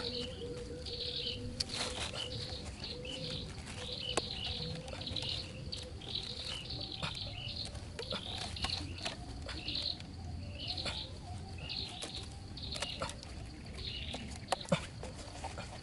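Birds chirping over and over in short high calls, with scattered sharp clicks and taps from hands tying string around a bicycle-tyre snare.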